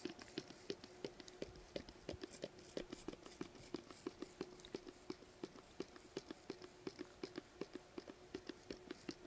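Trigger spray bottle of K&N air filter cleaner pumped again and again, faint quick spritzes at about three a second. A faint steady hum runs underneath.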